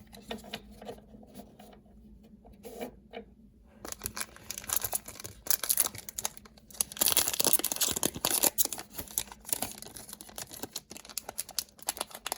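A foil One Piece Card Game booster pack being torn open and crinkled in the hands. The crackling starts about four seconds in and is loudest in the middle.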